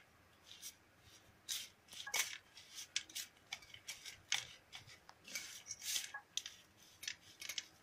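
Steel spoon scraping and clicking against a stainless steel plate in short, irregular strokes while mixing a crumbly khoya and grated-coconut mixture into a dough.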